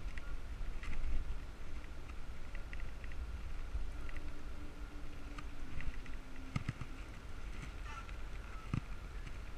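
Wind rumbling on the microphone of a bike-borne action camera while riding, with scattered light clicks and rattles. A faint steady hum comes in for a couple of seconds near the middle.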